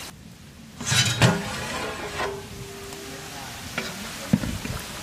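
A metal ladle stirring and clanking against a large aluminium cooking pot, several knocks, with the pot briefly ringing, over sizzling food.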